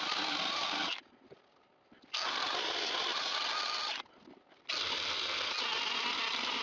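Power grinder grinding out cracked fiberglass on a sailboat deck fitting, run in three steady bursts: one stops about a second in, another runs for about two seconds, and a third starts near the middle and keeps going.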